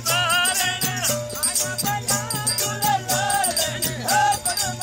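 Background music: a wavering, bending melody over repeated bass notes and a steady shaker-like beat.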